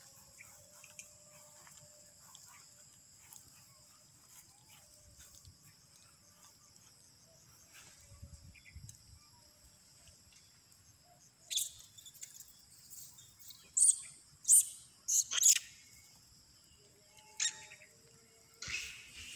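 Several short, loud, shrill animal calls in quick succession in the second half, with a couple more near the end, over a steady high hiss of outdoor background.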